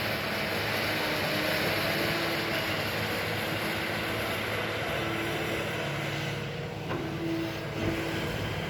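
Excavator's diesel engine running steadily under a constant hiss.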